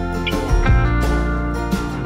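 Instrumental background music, with a new phrase of notes coming in about half a second in.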